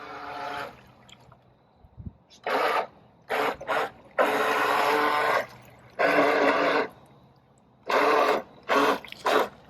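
A toy remote-control boat's motor and propeller churning water in repeated short bursts of throttle, about eight spurts of rushing, splashing noise with pauses between. A motor tone fades out in the first second.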